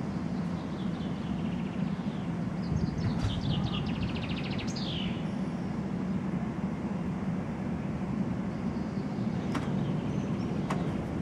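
Four-engine jet airliner passing low overhead, a steady low engine rumble. A small bird chirps and trills over it in the first half.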